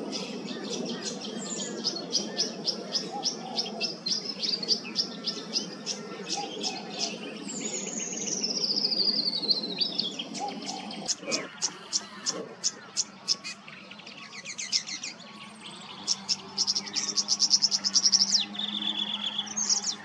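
Tawny grassbird singing in grassland, with a long descending trill about eight seconds in. Rapid, evenly repeated high ticking notes run throughout, and buzzy trills come in the second half.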